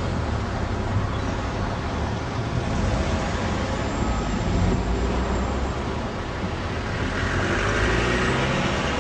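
Blackpool electric tram running on its track: a steady low rumble and hum, with a brighter hiss of wheels on rail building from about seven seconds in.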